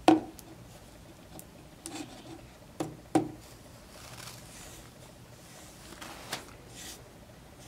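Paintbrush strokes rubbing varnish onto a painted soap dispenser bottle, broken by a few short knocks as the bottle is turned and handled against the table. The loudest knock comes right at the start and another about three seconds in.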